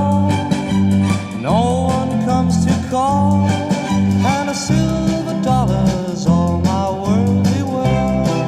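Music: an instrumental break in a 1960 pop song, with a lead melody that slides up into its notes over guitar and a steady, regular bass line.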